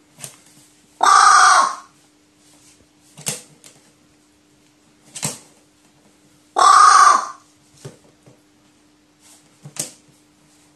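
Pet crow giving two loud caws, each just under a second long and about five and a half seconds apart, with a few short, sharp clicks between them.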